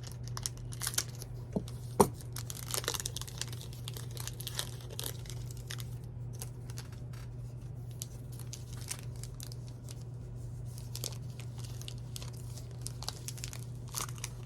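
A trading card pack's wrapper being torn open and crinkled by hand, with a sharp snap about two seconds in and scattered crackles after, over a steady low hum.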